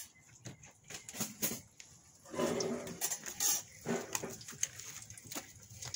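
Plates and utensils clinking, with a few separate knocks in the first two seconds, then oil sizzling around quesadillas deep-frying in a metal pan.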